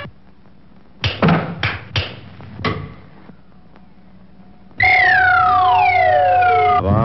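Cartoon sound effects: a quick run of four or five sharp knocks, then a long whistle-like tone that slides steadily downward in pitch over a second, steady held note.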